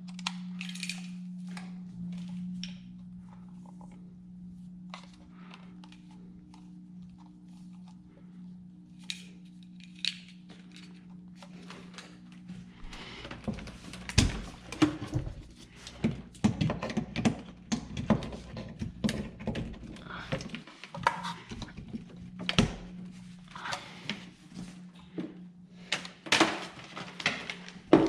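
Clicks, knocks and thunks of small hard objects being handled, sparse at first and then coming thick and fast about halfway through, over a steady low hum.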